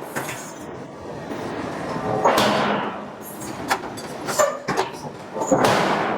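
Hydraulic forging hammer striking a steel billet twice, about three seconds apart, each heavy blow followed by a short noisy decay, with lighter metallic knocks between the blows.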